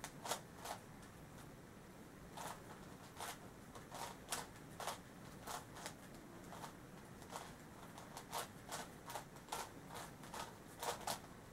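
Plastic puzzle cube being turned by hand while it is scrambled: irregular sharp clacks and clicks of the layers snapping round, a few each second.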